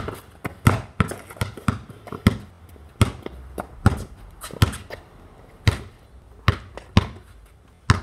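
A basketball being dribbled, bouncing repeatedly on hard ground: quick bounces at first, slowing to about one a second.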